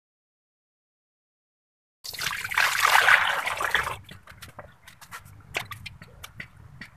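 About two seconds in, a large aluminium pot of water at a rolling boil starts up with a loud, dense bubbling. After a further two seconds it drops to quieter bubbling with sharp pops and splashes as pieces of raw rib meat are lowered in by hand.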